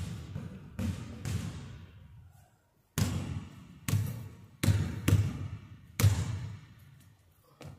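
Basketball bouncing on a hardwood gym floor: a few bounces, a short pause about two seconds in, then five slow, uneven dribbles. Each bounce echoes through the large gymnasium.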